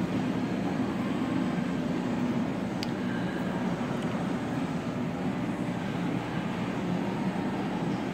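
Steady low background rumble, with one sharp click about three seconds in.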